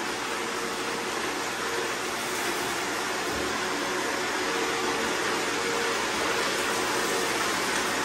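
Four robot vacuums, an iRobot Roomba i3+, a Roomba 690, a Shark Ion 750 and a Eufy G30, running at once in spot-clean mode, picking up rice from a tile floor. Their motors make a steady, even whir with a faint hum that comes and goes.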